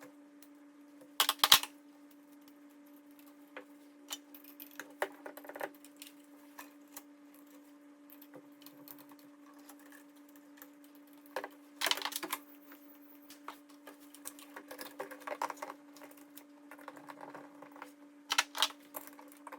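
Irregular clicks, taps and knocks of hands and tools working a small electrical switch into its mounting, the loudest about a second and a half in and again about twelve seconds in, over a faint steady hum.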